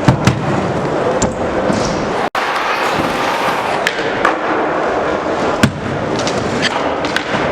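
BMX bikes riding skatepark ramps: a steady rolling noise broken by sharp clacks and thuds of landings and grinds. The loudest is about five and a half seconds in.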